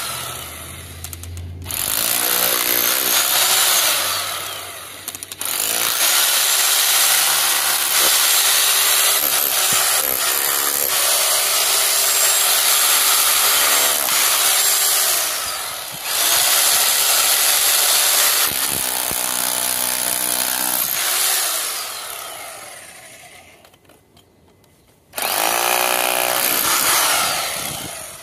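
Glority electric hammer drill with a chisel bit pounding into a concrete fence post footing, breaking it apart. It runs in several long bursts with short pauses, the motor pitch gliding as it starts and stops, and one longer stop before a final burst.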